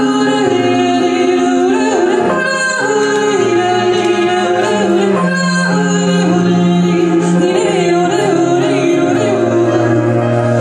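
A woman singing a slow song, accompanied by a Nord Stage electric piano and a bowed cello holding long low notes.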